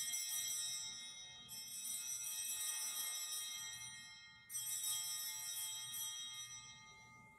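Altar bells rung at the elevation of the chalice after the consecration: one ring carrying on from just before, then two more, about a second and a half in and about four and a half seconds in, each ringing on and fading away.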